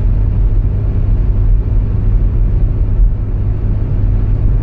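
Steady road noise inside a car cruising at about 120 km/h: a continuous low rumble of engine and tyres with no change in pace.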